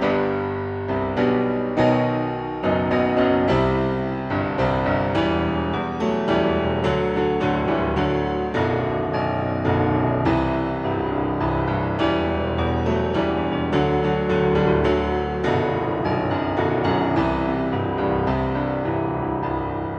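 Background piano music, a steady run of struck notes.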